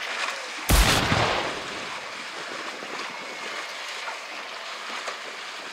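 Steady wind and sea noise on an open fishing boat, with one sudden loud burst of noise about a second in that fades away quickly.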